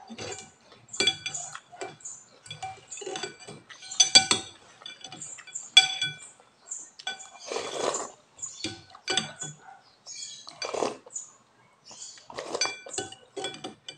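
A metal fork and spoon clink against a glass soup bowl again and again, each strike ringing briefly. Between the clinks come a few longer slurps of noodle soup from the spoon.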